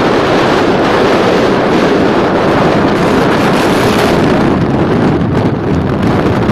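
Strong wind buffeting the microphone: a loud, steady rushing roar that eases slightly near the end.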